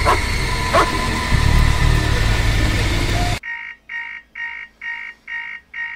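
Harsh, noisy horror-trailer soundtrack with heavy bass, steady shrill tones and two falling swoops, which cuts off abruptly a little over halfway through. An electronic alarm then beeps in even pulses about twice a second.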